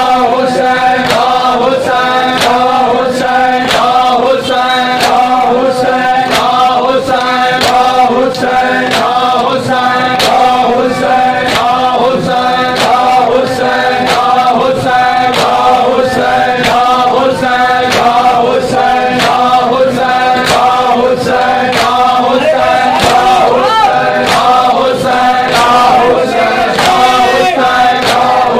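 A group of men chanting a Muharram nauha (lament) together, with sharp slaps of hands on bare chests (matam) beating out a steady rhythm, about one to two slaps a second.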